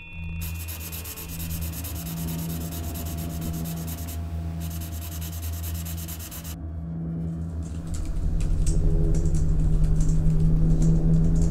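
Film sound design: a steady low drone under a loud rasping scratch of a marker shading on paper, which stops about six and a half seconds in. A low pulsing rumble then swells and grows louder.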